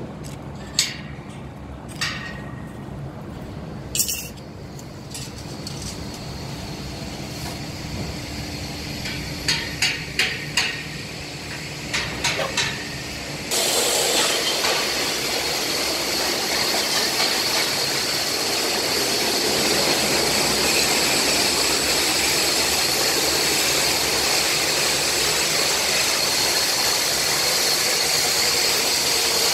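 Scattered sharp metal knocks and taps from work on welded steel box frames, including a quick run of several knocks. About halfway through, the sound changes abruptly to a loud, steady machine noise with a strong hiss.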